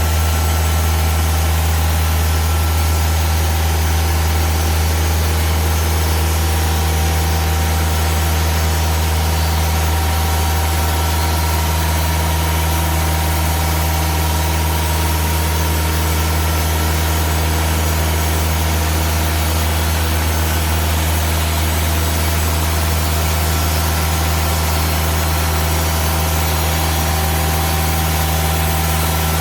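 TimberKing 2000 band sawmill's engine running steadily: a loud, even hum with no change in speed.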